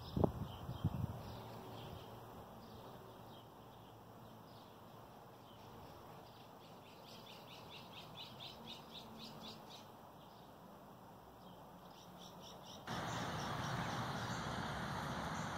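Small birds chirping over faint outdoor background noise, with a few sharp knocks in the first second. About thirteen seconds in, the background switches abruptly to a louder steady noise.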